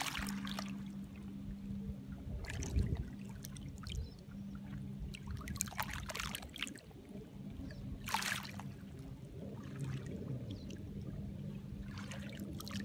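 Small lake waves lapping onto a pebble shore, one wash over the stones every two to three seconds. A steady low hum runs underneath.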